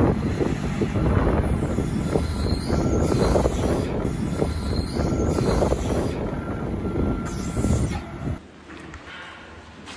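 Tractor towing a Peecon feed mixer wagon drives past: a heavy engine rumble with an uneven clatter from the wagon. It drops away abruptly about eight seconds in, leaving only a faint steady noise.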